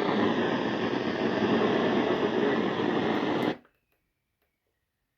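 Loud, steady radio static hiss from a weather radio broadcast receiver, cutting off suddenly about three and a half seconds in and leaving near silence.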